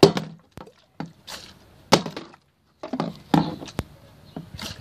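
A partly water-filled plastic bottle being flipped and landing or knocking on wooden decking: a series of short, sharp knocks and thuds, several close together about three seconds in.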